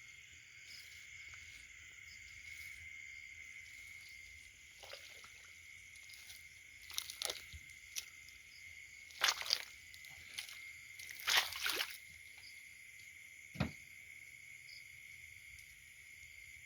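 Steady high chirring of insects, with a scattering of short wet squelches in mud through the middle, the loudest about nine and eleven seconds in, and one sharper squelch near the end.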